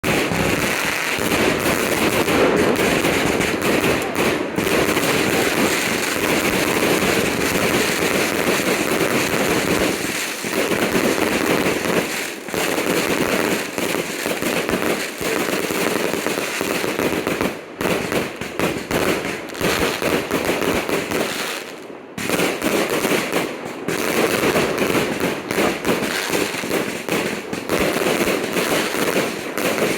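Fireworks crackling and popping in a rapid, dense, continuous stream, with a few brief lulls past the middle.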